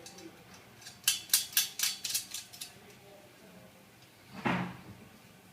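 Metal-on-metal clicking and clinking as steel cable tray and its roofing nuts and bolts are handled and fitted together: a quick run of sharp clicks about a second in, then a single louder clunk near the end.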